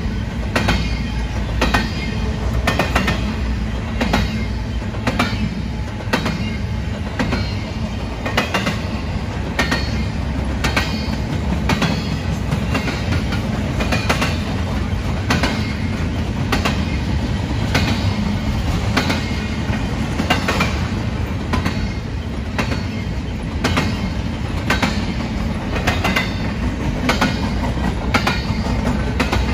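A BNSF freight train of empty intermodal cars rolling steadily past, its wheels clacking over the rail joints about twice a second above a low, constant rumble.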